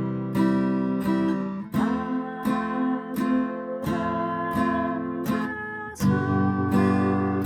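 Acoustic guitar strummed in a basic 3/4 waltz stroke, one chord stroke per beat, about one stroke every two-thirds of a second. The chord changes about 2 s in and again about 6 s in.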